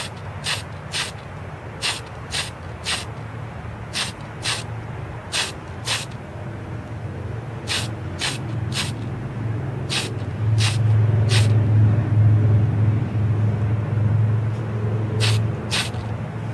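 Short hissing bursts of paint being sprayed onto a watch dial, mostly in quick pairs or threes about half a second apart, over a low steady hum that grows louder about ten seconds in.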